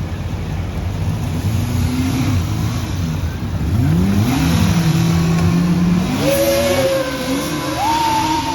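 Emergency vehicle on an emergency run, its engine revving up and down in pitch, with a siren's gliding wail building over the second half.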